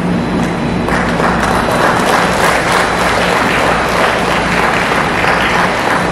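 Audience applauding; the clapping swells in about a second in and carries on steadily.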